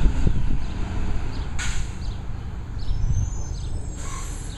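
Rear-loader garbage truck's engine rumbling low and steady as it pulls slowly away, with two short hisses, about a second and a half in and near the end, and birds chirping.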